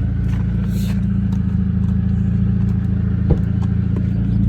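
Mercedes-Benz C230 engine running steadily with a deep exhaust drone, which the owner puts down to a probable hole in the muffler or a bad catalytic converter. A single sharp click a little over three seconds in.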